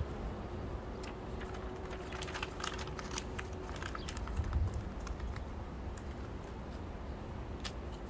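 A quick run of light, irregular clicks and taps, about a second in and lasting a few seconds, with one more near the end: fingertips and small plastic 3D letters tapping against the truck's tailgate as they are fitted. Low wind rumble on the microphone underneath.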